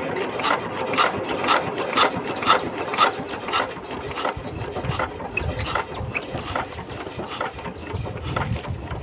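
VST Shakti 130 DI power tiller's single-cylinder diesel engine being hand-cranked, turning over freely with a regular clack about twice a second that weakens in the second half. It does not fire, and the injector nozzle's knock is absent.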